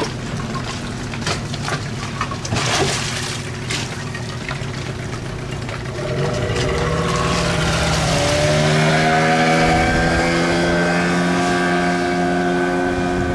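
Boat engine running over wind and water noise. It gets louder about six seconds in and rises in pitch around eight seconds as it speeds up, then holds steady.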